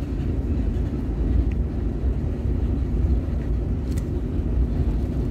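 A car driving, heard from inside the cabin: a steady low rumble of engine and road noise with a faint steady hum. There is a faint tick about four seconds in.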